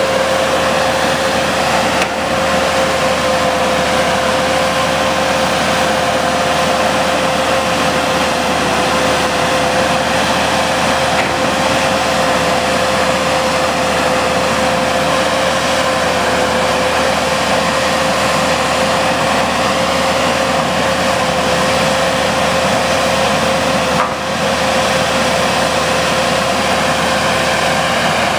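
Knox Kershaw KTC1200 tie crane's engine running steadily as the machine travels on the track, with a steady high whine over the engine noise.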